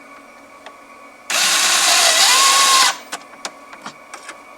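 Electric drill/driver running a screw into the dashboard trim for about a second and a half, its motor whine rising in pitch partway through. Light clicks of handling come before and after.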